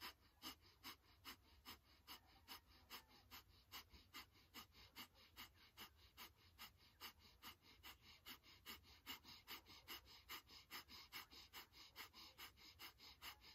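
Breath of fire: rapid, forceful breathing through the nose driven by pumping the navel, a faint, steady rhythm of short puffs at about three a second.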